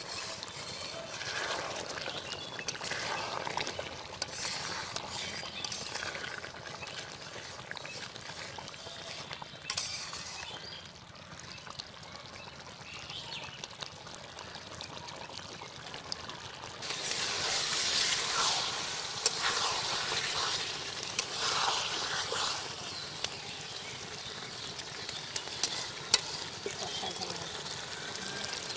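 Chicken curry bubbling and simmering in a large kadai. From about seventeen seconds in it turns to a louder, hissier sizzle as the reduced chicken kosha fries, with a few sharp knocks.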